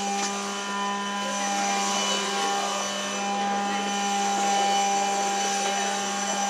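A steady mechanical hum with several steady tones over a hiss, unchanging throughout.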